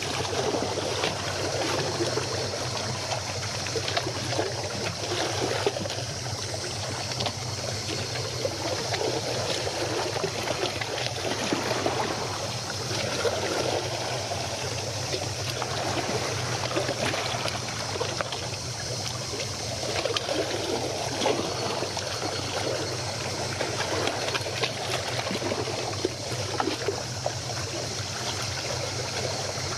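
Water lapping and trickling at the shore in small uneven splashes, over a low steady hum.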